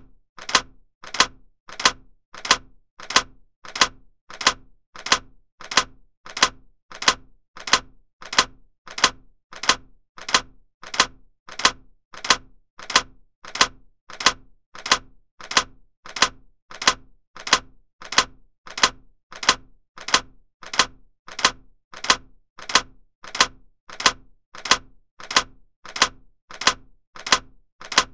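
Steady, evenly spaced ticking clicks, about three every two seconds, each a sharp click with a softer one just before it.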